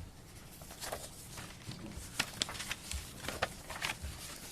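Paper pages being leafed through: a run of short, irregular rustles and flicks as a stack of medical records is searched.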